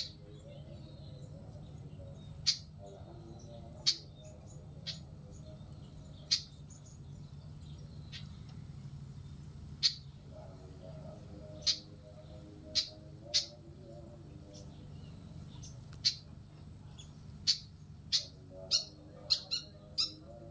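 Malaysian pied fantail giving short, sharp single call notes, spaced a few seconds apart and coming in a quicker cluster near the end.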